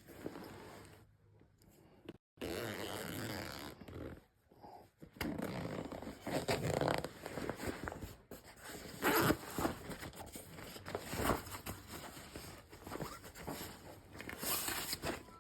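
Backpack zipper being pulled, with fabric rustling and scraping as the bag is handled, in irregular strokes throughout.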